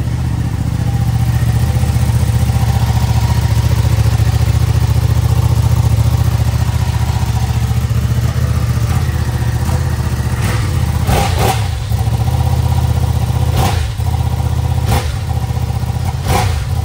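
Ducati Panigale V2 twin-cylinder engine idling steadily, then several sharp throttle blips in the last few seconds.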